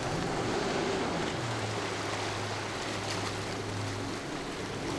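Rushing white water of river rapids, a steady even wash, with a low steady hum underneath.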